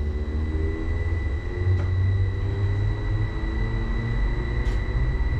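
Uijeongbu light rail car running along its guideway, heard from inside at the front: a steady low rumble with a constant high whine.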